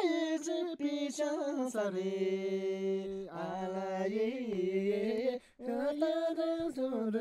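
A single voice singing a slow melody with long held notes and slides between pitches, breaking off briefly about five seconds in.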